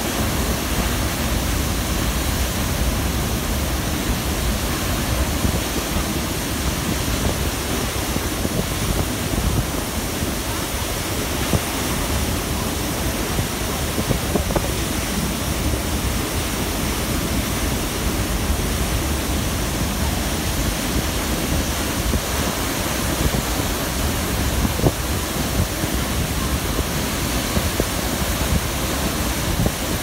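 Athirappilly Falls, a large waterfall, pouring over a rock face onto boulders: a steady, unbroken rushing of water heard close to its base.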